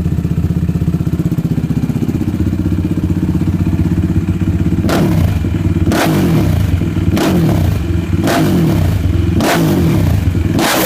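Suzuki LT-R450 quad's single-cylinder four-stroke engine through an aftermarket DASA exhaust, idling, then blipped about six times, roughly once a second, each blip rising in pitch and dropping back to idle.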